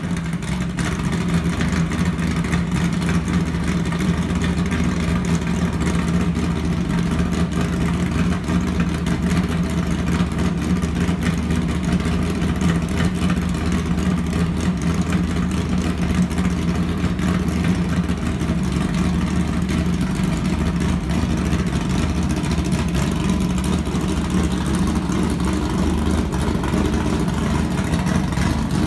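Vehicle engine idling steadily with a low, even hum.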